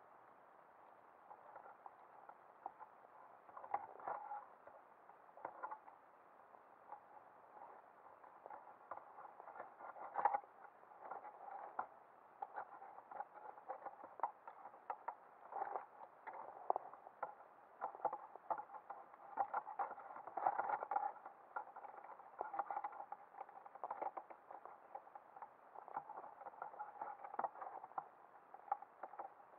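Underwater clicking and crackling, irregular and muffled, sparse at first and getting busier about a third of the way in.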